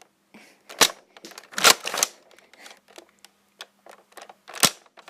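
Toy foam-dart blasters in a Nerf fight: three loud sharp clacks, the second one longer, and light clicks between them.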